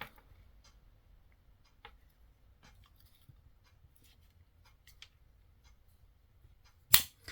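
Swiss Army knife tools being handled: faint small clicks and scrapes of the metal tools, then one sharper snap of a blade near the end.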